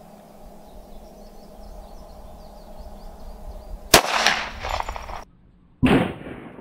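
A single shot from a .45 ACP Glock 21 pistol about four seconds in: a sharp crack with a ringing tail. About two seconds later, after a brief break in the sound, comes a second loud bang.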